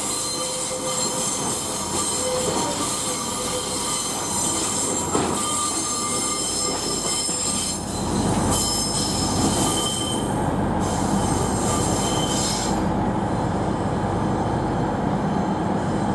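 Pacer diesel railbus pulling away over the station pointwork, its wheels squealing in several thin, steady high tones over the running noise. A low diesel rumble grows about halfway through, and the squeal thins out near the end.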